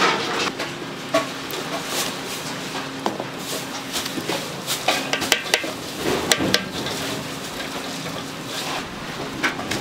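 Kitchen cooking clatter while rolled omelette is made: metal utensils irregularly clinking, knocking and scraping against pans and dishes, over a steady low hum.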